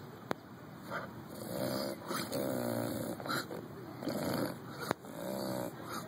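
English bulldog snorting through its short nose, several pitched snorts in a row over a few seconds, with two sharp clicks, one near the start and one about five seconds in.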